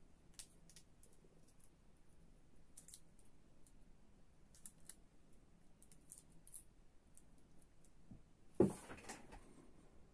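Faint small clicks and crackles of adhesive tape and coins handled by fingers as two coins are taped together, with one louder short thump and rustle near the end.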